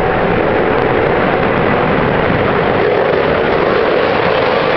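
F-15K fighter's twin jet engines giving a loud, steady roar as the jet flies overhead.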